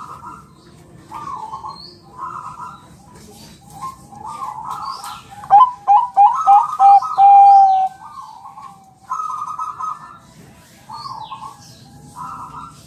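Zebra dove of the Bangkok perkutut song strain cooing: a string of short rolling, trilled coo phrases, with the loudest run in the middle ending in one long held note. Faint high chirps from other small birds sound now and then.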